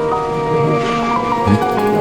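Background music: a melody of held notes that step up and down in pitch over a soft accompaniment.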